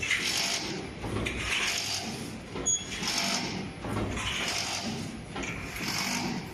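Full-automatic hexagonal chicken-wire mesh weaving machine running, its mechanism cycling in a rattling, hissing rhythm that swells about every second and a half. A sharp click comes about two and a half seconds in.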